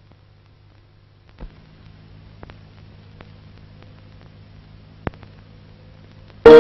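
Faint steady hum with scattered clicks and crackle, typical of an old film's soundtrack transfer, with a few sharper pops about a second and a half in and near the end. In the last instant a loud tone with many overtones cuts in suddenly.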